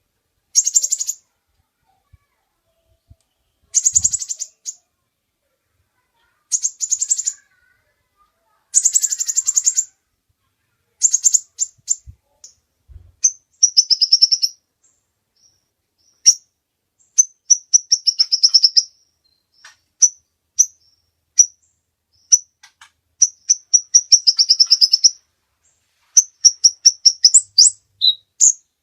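Kolibri ninja (a sunbird) singing: high-pitched bursts of fast trilling, each about a second long and coming every two or three seconds, then quicker runs of sharp chips and short trills in the second half.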